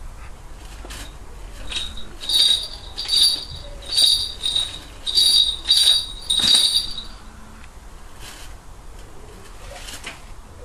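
Small falconry bells on a Harris hawk jingling in about seven short bursts over some five seconds, then stopping.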